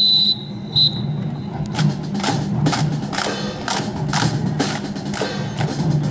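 Drill team's rifles clacking and slapping in unison as the cadets work them, a sharp knock every third of a second or so, over quiet band music. Two short high piercing tones come near the start, before the rifle handling begins.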